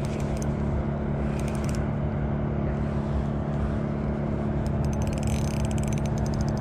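Steady low drone of road traffic, with bursts of rapid fine ticking from a spinning reel being cranked to bring in a hooked trout. The longest run of ticking comes near the end.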